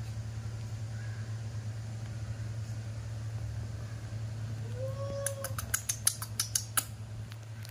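A steady low hum throughout. About five seconds in, a baby macaque gives one short squeak that rises and falls, followed at once by a quick run of sharp clicks lasting about a second and a half.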